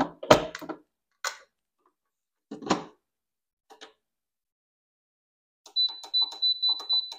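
Bread machine: a few knocks as the bread pan is seated and the lid shut, the strongest about two and a half seconds in. Then, near the end, a quick run of short high beeps, about four a second, one for each press of the control-panel buttons while the dough cycle is selected.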